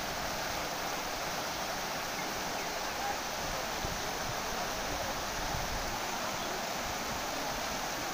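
Steady rushing of floodwater pouring over a low road embankment in a broad, churning cascade.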